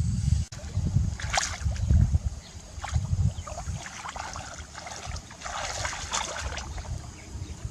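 Water splashing and sloshing in irregular bursts, with low rumbling thuds, loudest in the first couple of seconds.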